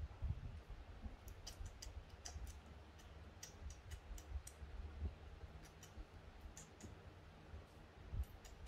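Baby monkey suckling from a milk bottle: faint, irregular clicking smacks of its mouth on the teat, over a low rumble of handling noise.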